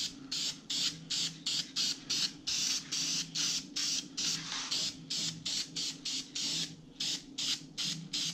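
Aerosol spray can of bronze metallic paint sprayed in short rapid hissing bursts, about three a second, with a few longer sprays in the middle.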